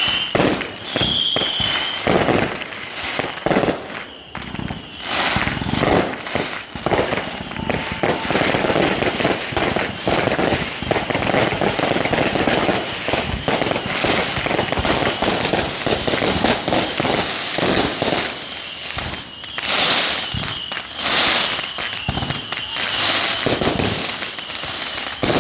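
Close-proximity fireworks going off in rapid succession, sharp bangs one after another, with a dense spell of crackling through the middle.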